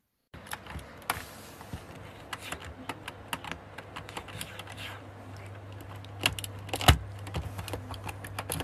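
Mechanical computer keyboard keys clacking in an irregular run as a cat's head and mouth press and bite on them.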